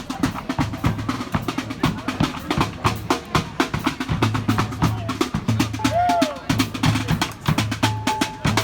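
A festival street band playing, led by fast, busy drumming on snare and bass drums, with a low repeating bass line underneath and a short held horn note near the end.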